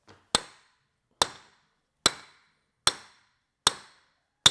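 Hammer blows driving a bearing onto a gear pump shaft to seat it against the shaft shoulder: six sharp strikes about 0.8 s apart, each ringing briefly.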